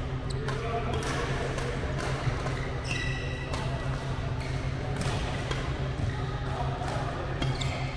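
Badminton rackets striking shuttlecocks in a fast drill: sharp hits repeating roughly every half second to second, with footfalls on the court. There is a brief high squeak about three seconds in and a steady low hum underneath.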